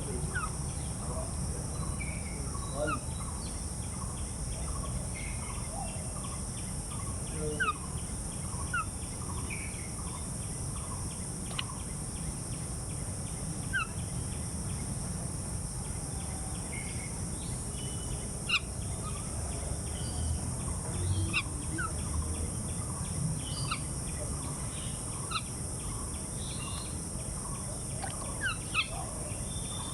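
Birds chirping in short, scattered calls, over a steady low rumble and a steady high hiss.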